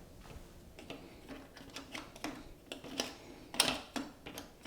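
Plastic pieces of a tower fan's base clicking and knocking as they are handled and fitted together, with a sharper knock about three and a half seconds in.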